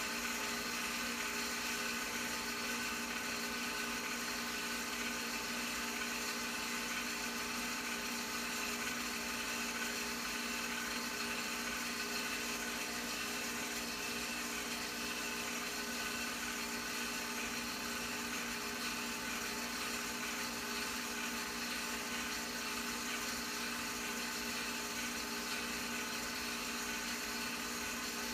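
Home-movie film projector running: a steady motor whir with fixed tones and hiss that does not change.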